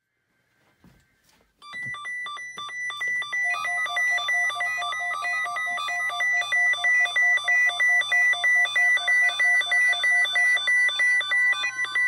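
NOAA weather radio receiver beeping its alert tones as it picks up the Required Weekly Test: rapid electronic beeps, several notes at once, pulsing about three times a second, starting about two seconds in.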